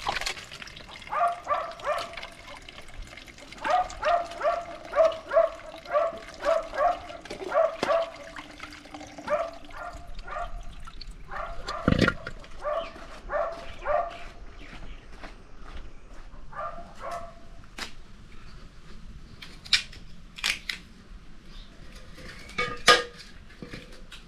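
A dog barking in quick runs of short barks, about two a second, which thin out past the middle. A dull thump about halfway through and a few sharp clicks near the end.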